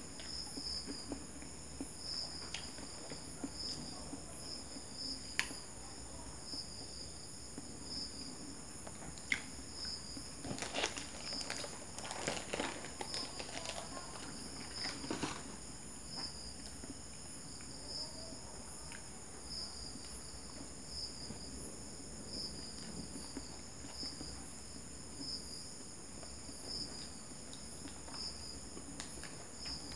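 Crickets chirping steadily in a thin, high, pulsing trill. From about a third of the way in, a paper sandwich wrapper is handled and crinkles for several seconds, with a few small clicks of handling elsewhere.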